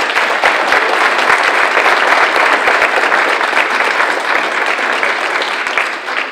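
Audience applauding steadily, a dense patter of many hands clapping that eases off near the end.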